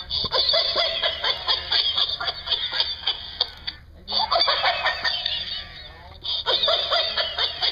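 Laughing plush toy cat: a recorded giggling laugh played from the toy, in repeated bursts that break off briefly about four seconds in and again just after six seconds.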